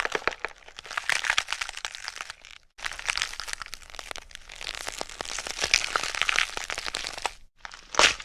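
Blood and gore sound effects: dense crunching and crackling in three separate takes, split by brief silences, the last starting with a sharp, loud hit.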